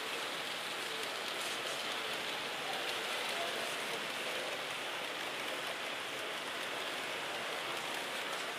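Steady, even background hubbub of a busy exhibition hall, with no single distinct sound standing out.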